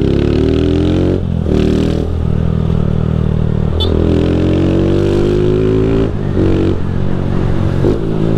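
Honda CG 160 Fan's single-cylinder four-stroke engine under the rider, accelerating through the gears. Its pitch climbs, then drops back at each shift, about six times.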